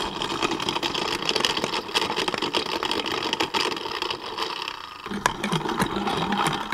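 Magimix blender motor running, its blades crushing frozen strawberries into a sorbet. About five seconds in, the sound grows deeper and wavers as the tamper pushes the stiff frozen mixture down into the blades.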